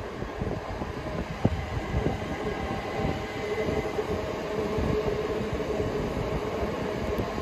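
Electric passenger train moving through the station with a rumble of wheels on track. There are a couple of sharp clicks about a second and a half and two seconds in, then a steady motor whine from about two and a half seconds.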